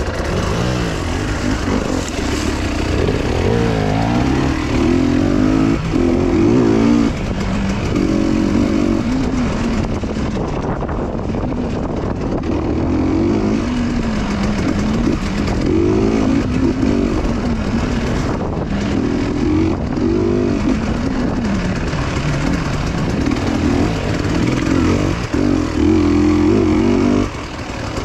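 Motorcycle engine running under way, its pitch rising and falling again and again as the throttle is opened and closed.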